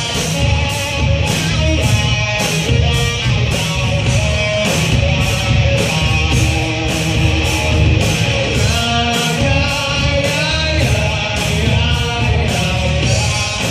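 Live rock band playing: electric guitars, bass guitar and drum kit, with a steady beat of cymbal and snare hits about two a second.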